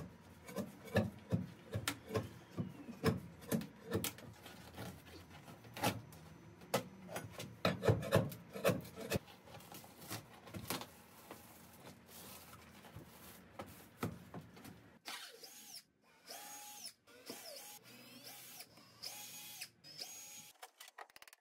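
A pry bar knocking and scraping as a textured cover is levered up off a wooden boat floor, in irregular sharp knocks. About fifteen seconds in, a Ryobi cordless drill-driver starts whirring in several short runs, backing out the floor screws.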